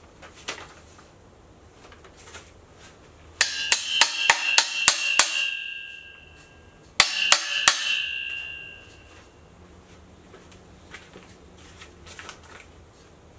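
Steel tube frame of a desk being knocked with sharp blows: about seven in quick succession, then three more a little later. Each group leaves the metal ringing at a steady pitch as it dies away.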